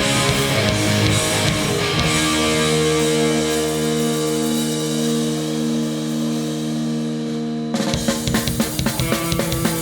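Live hardcore punk band starting a song: distorted electric guitar chords rung out and held, then near the end the drums and the full band come in with a fast beat.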